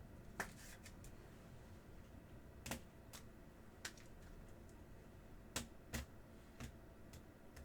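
Trading cards being handled on a table: a few faint, sharp clicks and taps, about eight spread irregularly over several seconds.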